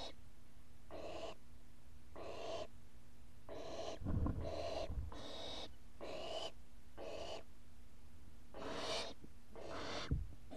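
Barn owl nestlings giving their hissing, snore-like begging calls, one harsh breathy call about every second. A couple of dull thumps come about four and ten seconds in.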